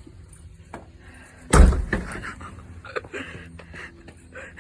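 A single loud thump about one and a half seconds in, with a few fainter knocks around it.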